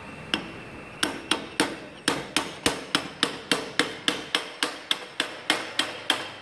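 Sharp metal-on-metal knocks, evenly spaced at about three a second, starting about a second in.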